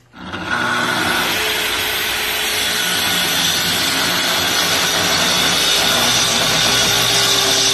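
Plunge-cut track saw starting up abruptly and running steadily as it is pushed along its guide rail, cutting through a sheet.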